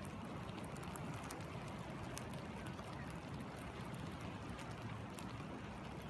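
Rain falling on a stream and its pools: a steady hiss pricked with scattered sharp drop ticks, over the low rush of flowing water.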